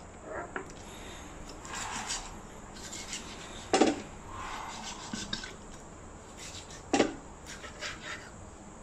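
Large kitchen knife cutting into a whole raw duck on a cutting board: soft scraping and slicing noises, with two sharp knocks as the blade chops down onto the board, about four seconds in and again about seven seconds in.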